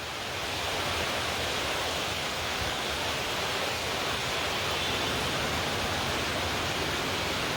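Heavy downpour: the steady, dense hiss of torrential rain falling.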